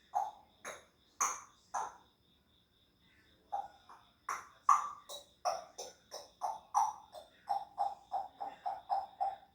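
African grey parrot making a run of short pitched pops as a mimicked sound effect: a few irregular ones, a pause of about a second and a half, then a quick even series of about four a second.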